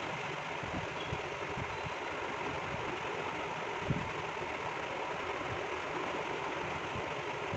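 Steady, even background noise with no clear rhythm or tone, and a single soft knock about four seconds in.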